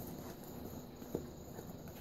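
A dog's claws tapping on a vinyl kitchen floor as it shifts about: a few sparse clicks, the clearest about a second in.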